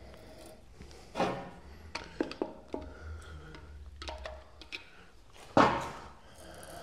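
A thread-cutting tap turned by hand with a T-handle tap wrench into a drilled hole in a metal block, a freshly sharpened tap cutting its first threads. Scattered small clicks and scrapes come from the tap and wrench, with a louder short rasp about five and a half seconds in.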